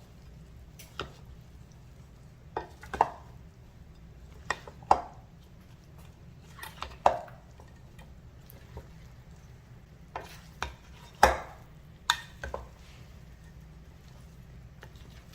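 A spoon stirring a thick, chunky filling of chopped chicken, bacon, vegetables, cheese and cream of mushroom soup in a mixing bowl, with irregular clinks and short scrapes against the bowl.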